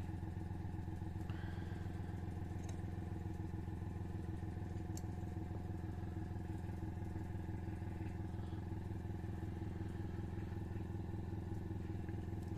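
Airbrush compressor motor running steadily, with a fast, even pulse.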